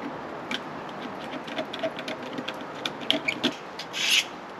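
Light clicks and taps of a folding pocket utility knife being handled, then about four seconds in a short, loud scraping stroke of the knife.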